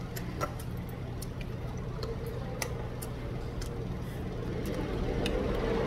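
Light, sharp clicks of chopsticks and a metal spoon against rice and soup bowls while eating, over a steady low hum. A louder rushing noise builds near the end.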